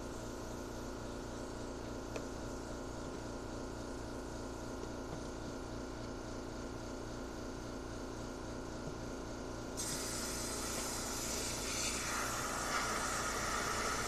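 Air compressor running steadily. About ten seconds in, compressed air starts hissing from a rag-wrapped blow nozzle pressed against the coffee maker's water tube, which is suspected to be clogged, and the hiss grows louder near the end.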